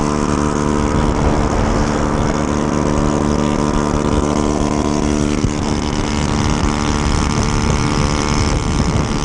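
Honda Ruckus scooter's engine running steadily at cruising speed, with a steady rush of wind and road noise.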